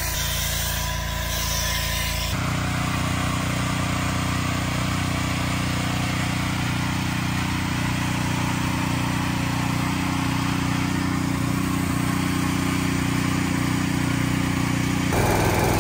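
Small engine of a pressure washer running at a steady pitch. For the first two seconds, water and foam hiss from the spray over it.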